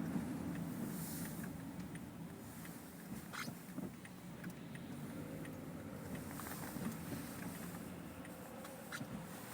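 Low, steady tyre and road rumble heard inside the cabin of a 2014 Toyota Camry LE driving on a wet road, with a few faint ticks scattered through it.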